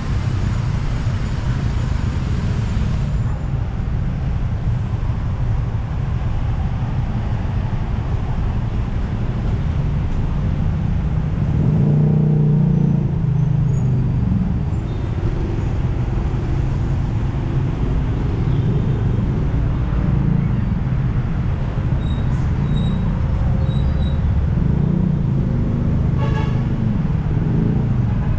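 Busy road traffic: a steady rumble of passing cars and buses, with one louder vehicle going by about halfway through.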